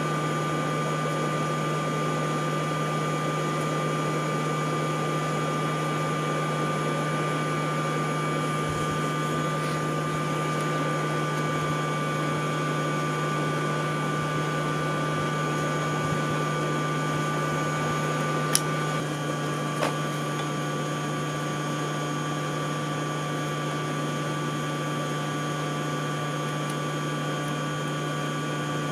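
Electric forge air blower running with a steady hum and a faint whine. A sharp metallic click comes about two-thirds of the way through, with a fainter one a second later.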